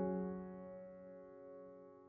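Soft background piano music: a held chord slowly fading away.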